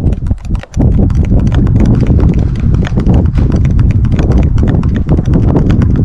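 A metal spoon stirring coffee in a small drinking glass, clinking rapidly against the glass several times a second, over a loud low rumble.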